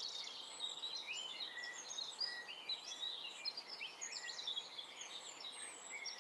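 Faint birdsong ambience: many small birds chirping at once in short, overlapping chirps over a soft hiss.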